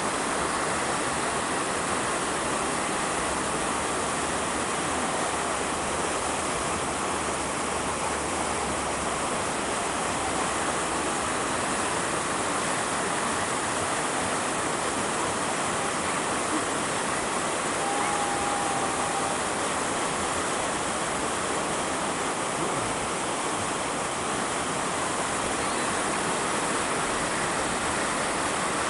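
Steady rushing water, an unbroken even noise. A brief faint whistled note about eighteen seconds in.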